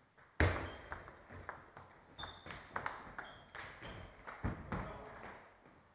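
Table tennis rally: the celluloid ball clicking off paddles and the table in quick succession. A heavy thump about half a second in is the loudest sound, with another near the end, and a few short high squeaks come in the middle of the rally.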